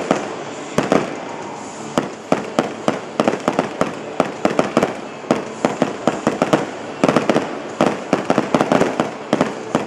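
Fireworks display: a rapid, irregular string of sharp bangs, several a second, from low-level comets, mines and shells bursting close by.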